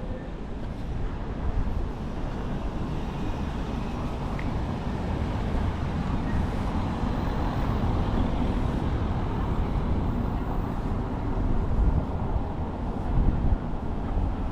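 Steady outdoor road-traffic noise: a continuous low rumble with no distinct events.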